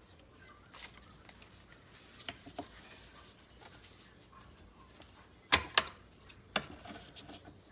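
Light taps and small clicks of journal covers and papers being handled on a work table, with two sharper knocks about five and a half seconds in and another about a second later.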